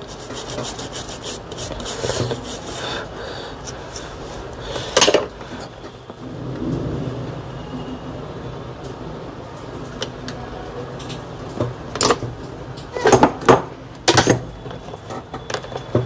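Small hand tools scraping and rubbing on a phone circuit board while dust is cleaned out of the display connector, with scattered clicks and a few louder knocks, clustered about three-quarters of the way through.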